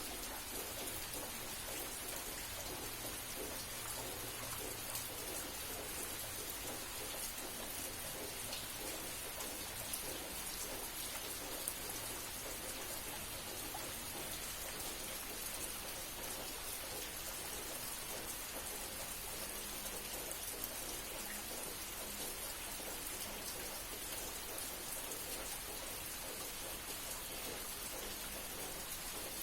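Steady night rain falling without letup, an even hiss with many small drop ticks on surfaces.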